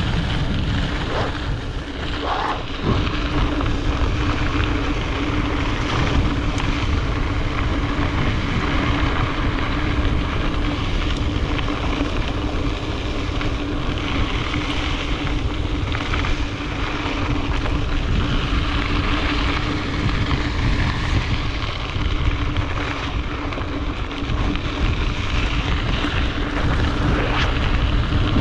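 Wind buffeting the microphone of a gravel bike rider at speed, over the rumble of the bike's tyres rolling and a steady hum underneath.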